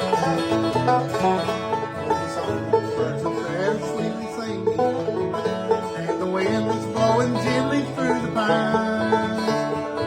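Banjo and guitar playing an instrumental break in a bluegrass song, with a few sliding notes.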